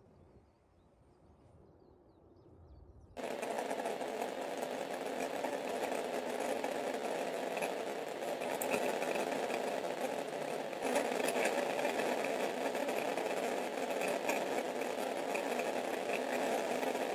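Near silence, then about three seconds in a sudden steady rushing noise from the erupting La Palma volcano, its lava fountains and flows, with faint crackles through it.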